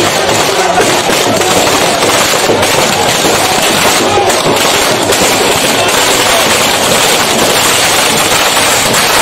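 Firecrackers and spark-fountain crackers going off in a dense, continuous crackle and popping, with crowd voices mixed in.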